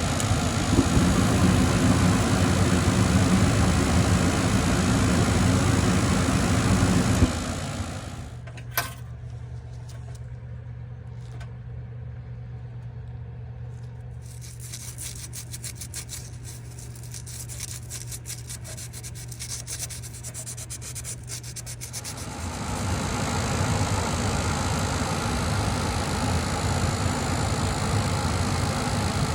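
Gas furnace running with a steady, loud mechanical noise that cuts off with a click about seven seconds in. A quieter stretch follows with a low hum and a run of fast fine scratching. The running noise starts up again near the end.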